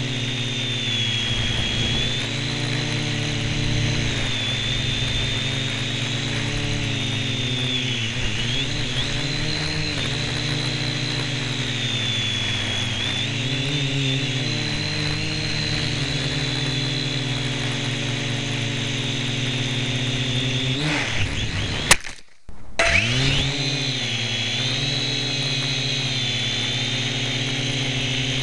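Syma X1 toy quadcopter's motors and propellers whining, picked up close by a camera strapped on top, the pitch wavering up and down with the throttle. About three-quarters of the way through, the whine drops away with a click and a brief break, then rises again.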